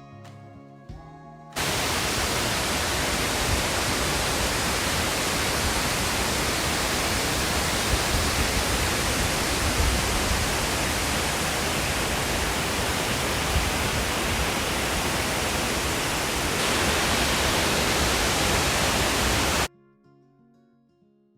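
Steady rushing noise of a wide single-drop waterfall, a dense even wash of falling water that starts abruptly about two seconds in and cuts off abruptly near the end. Soft music plays briefly before and after it.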